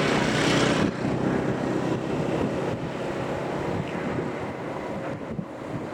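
Strong wind buffeting the microphone: a loud, steady rushing that drops suddenly about a second in, then eases off gradually.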